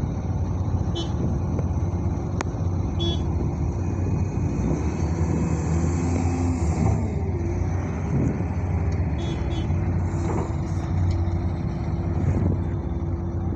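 A steady low engine rumble, like a motor vehicle running, with a few brief high chirps over it.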